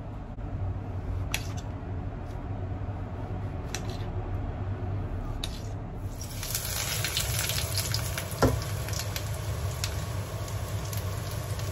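A few sharp knife clicks while king oyster mushrooms are sliced, over a low steady hum. About halfway through, oil starts sizzling steadily in a wok on a gas stove, with one sharp knock of metal on the wok a couple of seconds later.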